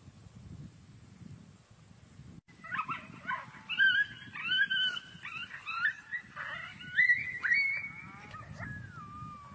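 Coyote hybrids yipping and howling high-pitched, a rapid run of short rising and falling yelps starting about two and a half seconds in, ending in one long howl that slides down and holds near the end.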